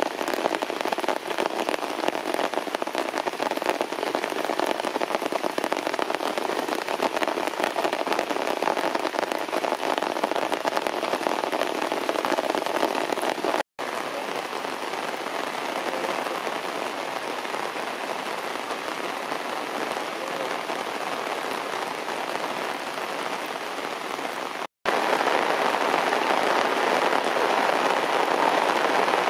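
Heavy rain falling on grass, leaves and stone, a steady dense patter of drops. It cuts out for an instant twice, and is a little softer between the two breaks.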